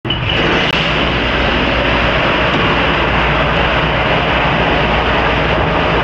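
Commercial conveyor dishwasher running: a steady, loud rush of spraying water over a low motor hum.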